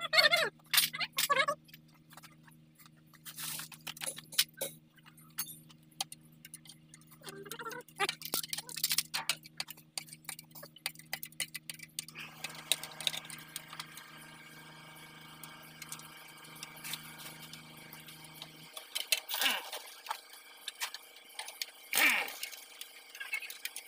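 Small metal parts of a truck steering knuckle and brake assembly clinking and tapping as they are handled and fitted by hand, over a steady background hum.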